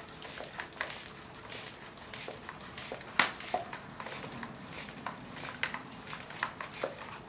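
Hand air pump being worked in steady strokes, about two a second, each stroke a short hiss of air with an occasional click, pressurising a homemade PVC air cannon's chamber.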